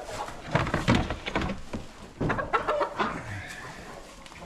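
Chickens squawking and clucking in two short bursts, about half a second in and again after two seconds, as a bird is handled and set among the roosting flock.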